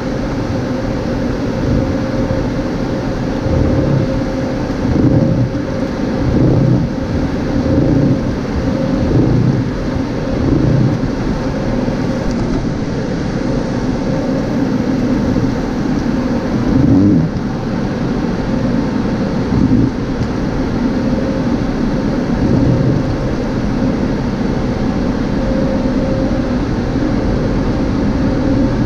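Late-2010s MacNeil car wash tunnel equipment heard from inside the car: a loud, steady rush of water spray and blown air over the body and glass, with a steady hum. For a stretch in the first half the noise swells about every second and a half.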